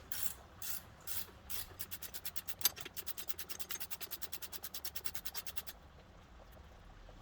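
Hand ratchet wrench clicking as a nut on the shock and spring assembly is run off: a few single strokes, then a fast, even run of about ten clicks a second that stops near the end.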